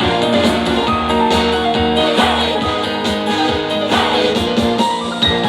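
Instrumental break of an upbeat pop song played through concert speakers: guitar and other instruments over drums with a steady beat, no vocals.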